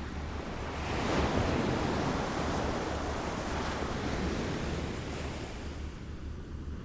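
Waves lapping against a shore: a wash of water that swells about a second in and slowly ebbs away.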